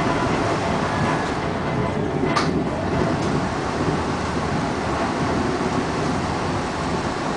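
Subway train running on its rails, heard from inside the car: a steady rumble with one short high-pitched squeal about two and a half seconds in.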